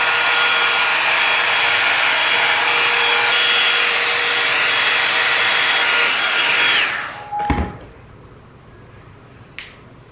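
Tymo hot-air blow-dry brush running with a steady whoosh of air and a motor whine, switched off about seven seconds in and winding down quickly. A thump follows, then a small click near the end.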